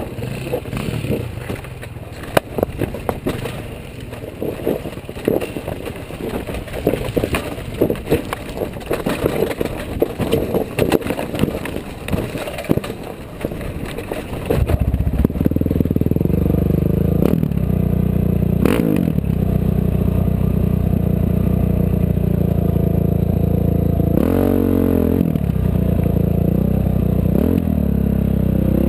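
Off-road vehicle riding over rough ground: rattling and clatter with many short knocks, then about halfway through the engine comes up loud and steady, its pitch dropping and climbing again several times.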